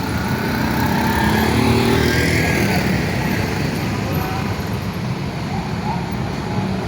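Road traffic, mostly motorcycles and cars running past at a steady level, a dense mix of engine noise and tyres.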